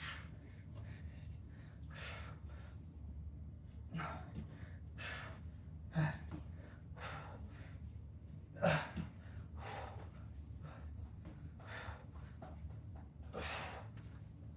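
A man breathing hard and audibly, a noisy breath roughly once a second, winded from exercise intervals.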